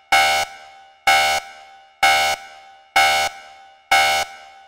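Alarm horn sound effect blaring in short, evenly spaced blasts, about one a second, five times: a warning klaxon.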